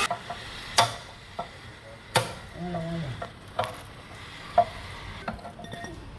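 Sharp knocks and clinks of metal parts and tools being handled, about five in all, spaced roughly a second apart, with a short voice sound about two and a half seconds in.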